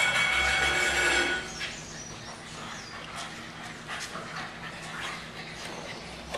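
English bulldog puppies: a high-pitched whine in the first second or so, then quieter scuffling and small clicks as the puppies play with their toys.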